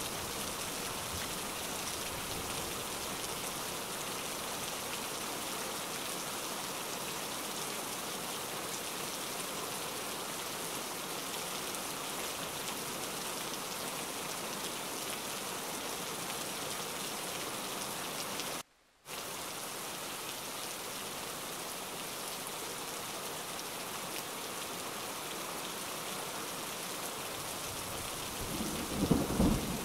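Steady rain falling, cutting out for a split second about two-thirds through. Near the end a low rumble of thunder begins to build.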